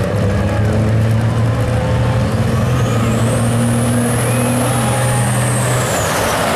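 Two pickup trucks accelerating hard down a dirt drag strip. A steady engine drone carries a high whine that rises and then falls over the middle seconds, and the drone drops away near the end as the trucks pass.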